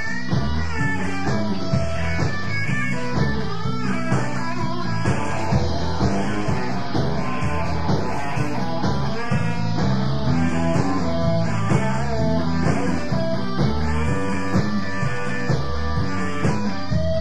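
Rock song led by guitar, with a swirling sweep through the upper range of the whole sound about once a second.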